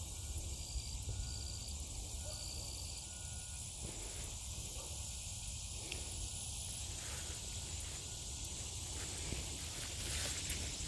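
Summer field ambience: insects keep up a steady high-pitched drone, over a low rumble.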